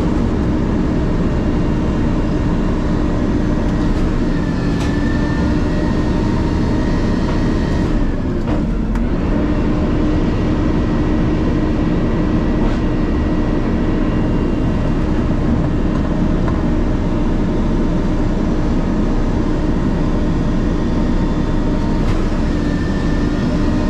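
Garbage truck's McNeilus body packing the load: the hydraulic packer runs off the engine held at raised idle, a steady drone with a hum over it. About eight seconds in the pitch dips briefly and comes back up, as the packer takes up load or changes stroke.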